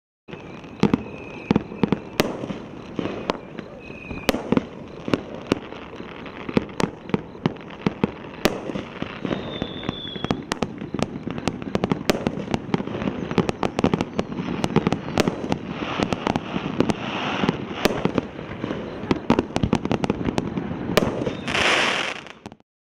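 A 200-gram consumer firework cake firing its shots: many sharp bangs and pops as shells launch and break, with strobe crackle between them. Near the end comes a dense burst of crisp crackling for the finale, which then stops suddenly.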